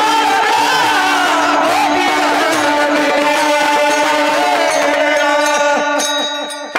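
Devotional kirtan music: a steady held drone with a voice gliding through a melody in the first few seconds, and regular drum strokes. It fades out near the end.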